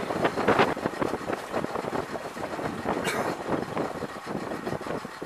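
Tour boat's engine running steadily, a rough continuous drone, with a brief hiss about three seconds in.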